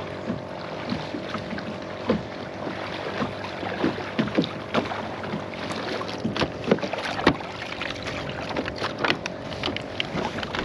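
Kayak on the move: water sloshing and splashing around the hull, with irregular sharp knocks of the paddle and gear against the boat.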